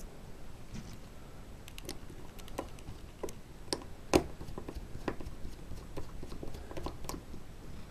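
Scattered light clicks and taps of small screws and parts being handled, with one sharper click about halfway through.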